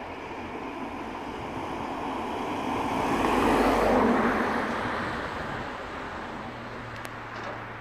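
A motor vehicle passing: its engine and road noise swell to a peak about halfway through and then fade away.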